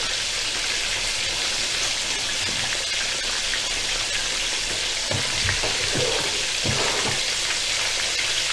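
Starch- and rice-flour-coated chicken pieces deep-frying in hot oil: a steady, even sizzle. A few soft low thuds come about five to seven seconds in.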